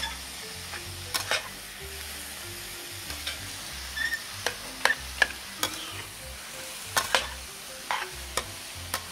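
Minced chicken sizzling as it is stir-fried in oil in a wok, with a metal spatula scraping and clacking against the pan at irregular moments.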